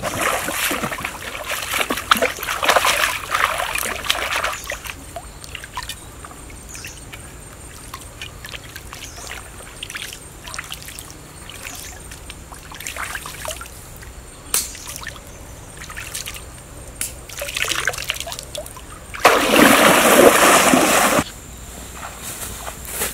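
Water splashing and trickling in uneven bursts as a clay bowl of grubs is rinsed and sloshed in a shallow stream. Near the end comes one loud rush of water about two seconds long that cuts off suddenly.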